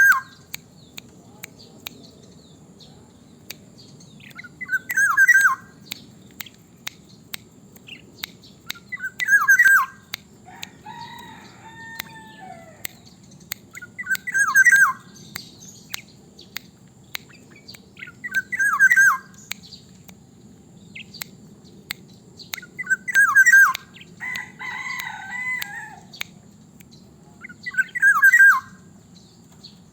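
Black-naped oriole (kepodang) singing a short fluting whistled phrase over and over, seven times, about every four and a half seconds. A different, longer call comes twice, once in the middle and once near the end, over faint scattered clicks.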